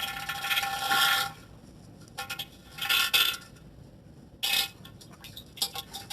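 Diarrhea sound effect: a long sputtering, splattering burst, then shorter spurts about two, three and four and a half seconds in, with scattered small clicks near the end.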